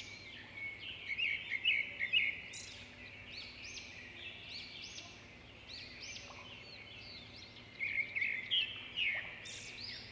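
Small songbirds chirping and singing, many quick rising-and-falling calls overlapping, with louder clusters about a second in and again near the end.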